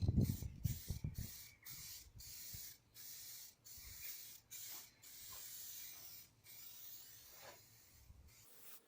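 Aerosol rattle can spraying paint in a series of short bursts, each a hiss lasting about a second, stopping and starting about eight times.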